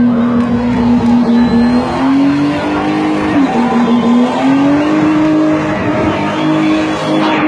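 BMW 325i engine held at high revs while the car spins donuts, its tyres squealing and smoking. The engine note holds steady, dips briefly about halfway through, then climbs back and holds.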